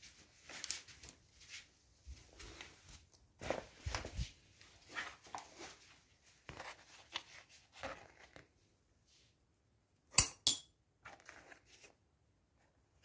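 Scattered handling noise, rustles and light knocks, with two sharp clicks in quick succession about ten seconds in.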